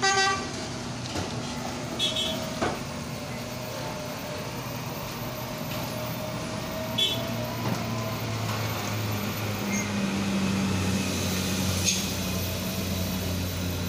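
A vehicle horn sounds briefly at the start, then heavy truck diesel engines run steadily, growing louder from about ten seconds in as a loaded Mitsubishi dump truck pulls through the hairpin bend.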